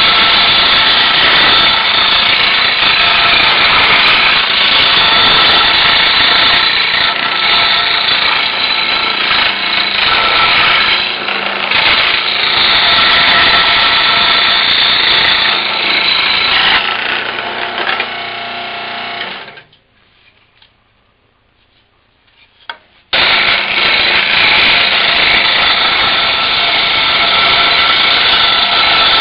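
Scroll saw cutting puzzle pieces out of plywood, running steadily. It winds down and stops about two-thirds of the way through, then starts up again a few seconds later.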